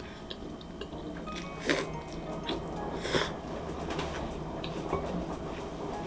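Close eating sounds: chewing a mouthful of spicy mixed noodles, with small wet mouth clicks and two short, sharp mouth noises about 1.7 and 3 seconds in, over faint background music.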